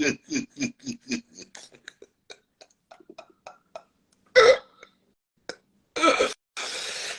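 A man's croaky laugh: a fast run of short throaty pulses, about five a second, fading away over a few seconds, with one louder burst about four seconds in and a breathy hiss near the end.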